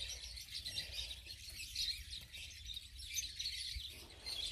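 Small birds chirping and twittering, many short high chirps, over a faint low rumble.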